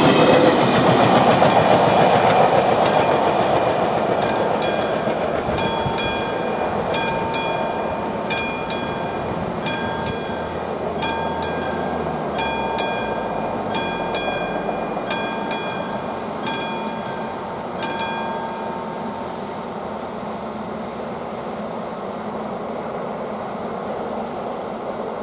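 Passenger train's wheels rumbling over the crossing and fading away in the first few seconds, while the level crossing's classic electromechanical warning bell strikes in an even rhythm, each stroke ringing on. The bell stops about 18 seconds in, as the warning ends.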